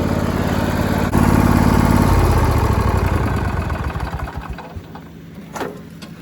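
Craftsman lawn tractor engine running, rising a little after one second in, then fading away about four seconds in to leave only a faint hum, with a brief squeak near the end.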